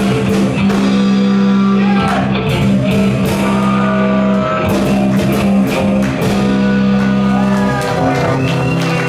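Live rock band playing, with repeated drum and cymbal hits, guitar, and held low bass notes under the melody.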